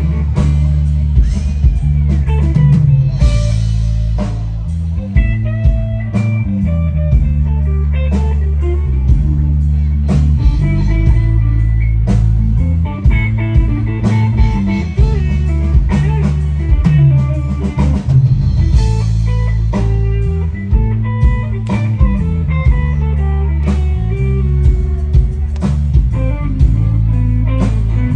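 A live band plays an instrumental passage, with electric guitar over a heavy bass line and a steady drum-kit beat, and no singing.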